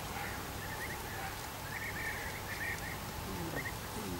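Birds chirping in short, scattered bursts of high twittering calls, with a low, falling hum near the end.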